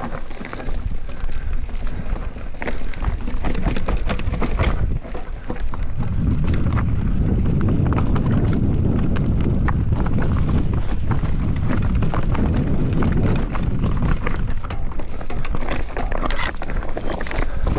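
Giant Reign full-suspension mountain bike descending a rocky dirt trail: tyres rolling over rocks and roots, with frequent rattles and knocks from the bike. A heavy low rumble on the microphone builds from about six seconds in and eases off a few seconds later.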